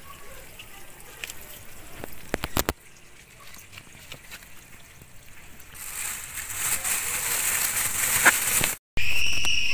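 Thin plastic carrier bag rustling and crinkling as freshly picked green beans are put into it, loudest over the last few seconds. A few sharp clicks come about two and a half seconds in.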